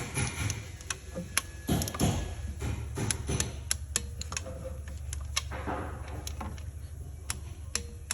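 Irregular light metallic clicks and taps of tools and engine parts being handled during timing-chain installation, over a steady low hum.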